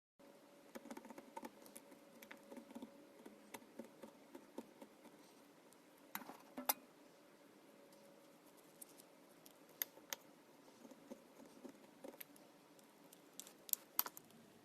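Slime being handled and squished: faint scattered small clicks and pops, with a few sharper pops about six and a half, ten and fourteen seconds in.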